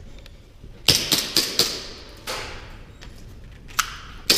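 Airsoft guns firing single shots at an irregular pace: a quick run of sharp cracks about a second in, another a little later, and two more near the end. Each crack echoes around a large, empty warehouse hall.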